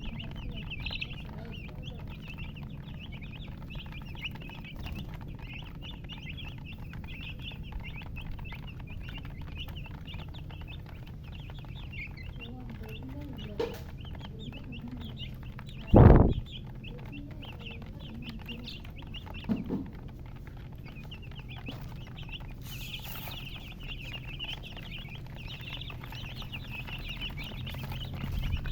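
Baby chicks peeping continuously in rapid high-pitched chirps. A brief loud low thump comes about sixteen seconds in.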